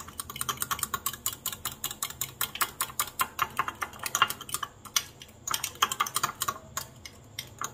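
A spoon clicking rapidly against a glass bowl while stirring a mayonnaise white sauce, several quick clicks a second, with a brief pause about five seconds in.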